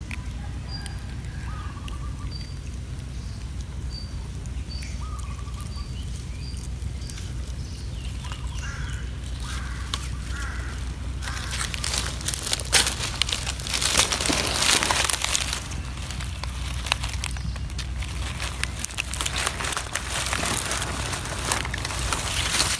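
Dry leaves crackling and rustling close by as a baby monkey moves and forages in them, from about halfway through; before that, small birds chirping with short repeated notes over a steady low wind rumble.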